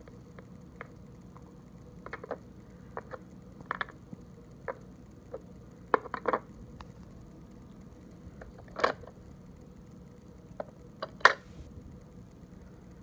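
Plastic pieces of a dog treat puzzle board clicking and knocking as cones, discs and sliding covers are handled, in scattered irregular taps with two louder knocks, one before halfway and one about two-thirds through.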